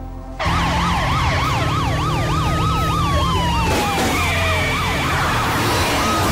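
Police car sirens starting suddenly about half a second in. A fast rising-and-falling yelp runs alongside a second tone that slides slowly down, over a steady rumble of vehicle engines.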